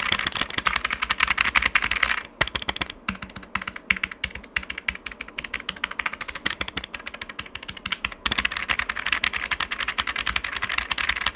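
Typing on an EPOMAKER Tide 65 mechanical keyboard: fast continuous key clatter, slowing to separate keystrokes for several seconds in the middle, then fast again. A muted clatter, about as loud as red switches and not as loud as clicky blue switches.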